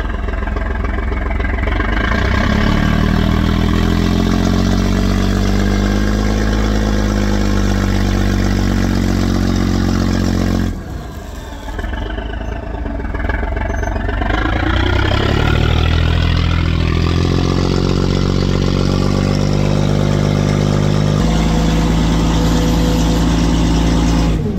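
A three-engine barge's engines running under throttle, rising in pitch as they rev up. The sound breaks off suddenly about eleven seconds in, then comes back and climbs again, stepping up once more near the end.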